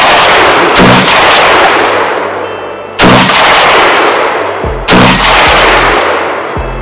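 Mini Draco AK-pattern pistol in 7.62×39 firing single shots, three of them about two seconds apart. Each shot is followed by a long echo that dies away slowly, and the echo of a shot fired just before still rings at the start.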